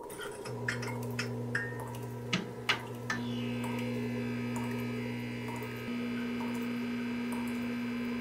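Eerie ambient drone of a film soundtrack: a steady low hum with half a dozen sharp ticks and clicks over the first three seconds, then a layer of high steady tones joining about three seconds in.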